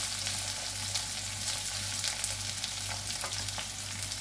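Sliced onions sizzling and crackling in hot oil in an iron kadai, being sautéed and stirred with a spatula.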